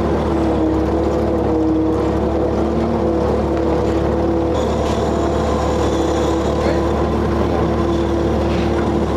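A machine motor running steadily, a constant drone with a steady low hum.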